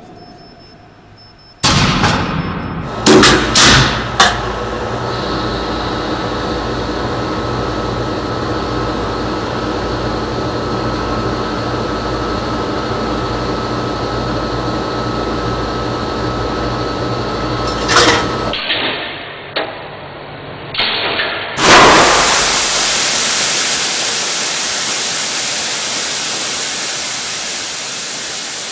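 Machinery at a pool-type nuclear reactor: a few loud clunks, then a long steady hum with a faint high whine, another clunk, and then a loud hiss that sets in suddenly and slowly dies away.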